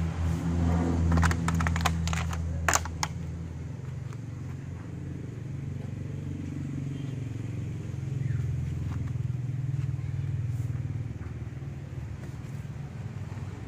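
A motor vehicle engine running steadily, with a few sharp clicks and knocks in the first few seconds.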